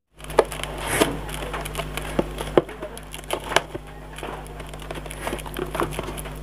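Hands handling and opening a small cardboard box on a hard table: scattered taps, knocks and scrapes of cardboard with rustling between them, over a steady low hum.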